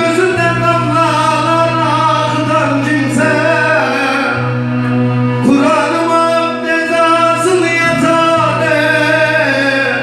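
Uzun hava, a Turkish free-rhythm folk song: a long, ornamented sung line gliding over a steady low drone, with a fresh phrase starting about halfway through.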